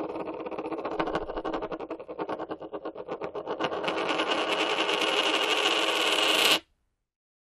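A coin spinning on a hard surface: a rapid rattle of clicks that speeds up as it wobbles lower and runs together into a continuous whirr, then stops abruptly about six and a half seconds in.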